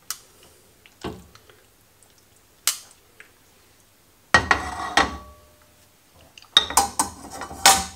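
Metal tongs clinking lightly against a frying pan, then the pan set down on a gas hob's metal grate with a clattering knock about halfway through. Near the end the tongs are dropped into the pan with a few sharp clinks.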